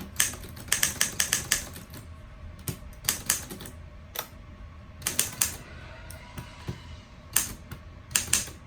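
1947 Underwood SS manual desktop typewriter being typed on: sharp, irregular keystrokes in uneven bursts, with a pause of about a second and a half after the middle.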